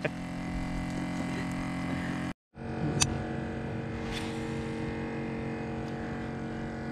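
Steady low hum made of several level tones. It drops out completely for a moment a little after two seconds, and there are two sharp taps about three and four seconds in.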